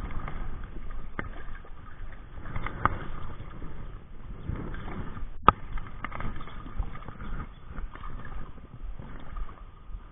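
Water splashing and sloshing unevenly as a hooked rainbow trout thrashes on the line, with a single sharp click about halfway through.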